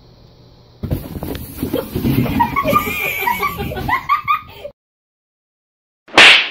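People laughing and talking from about a second in until nearly five seconds, then a sudden cut to silence, and a short loud burst of noise just before the end.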